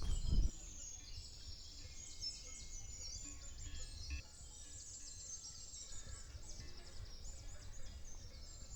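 Small birds chirping and twittering, many short overlapping calls, over a low outdoor rumble. A louder low sound cuts off about half a second in.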